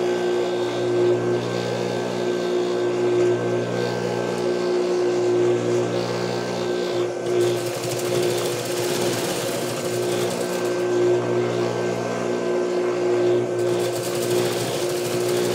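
Juki industrial sewing machine: its motor hums steadily throughout, and it stitches through the layered rug fabric in two runs, one about seven seconds in and another near the end.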